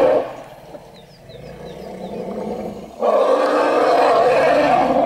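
African elephants giving loud, rough roaring calls while charging, a threat call against wild dogs that are near their calf. One call cuts off just after the start and a second runs from about three seconds in for about two seconds, with a few faint high chirps in the quieter gap between.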